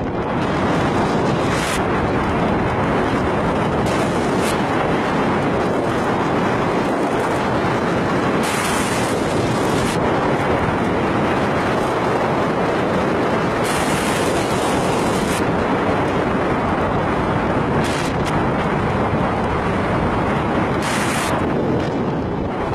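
Loud, steady rushing noise of wind buffeting the microphone, broken by several short gusts of brighter hiss.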